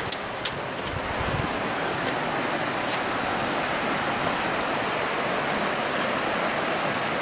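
Steady rushing of the North Fork of the Virgin River as it flows fast over rocks through the slot canyon. A few light clicks come in the first three seconds.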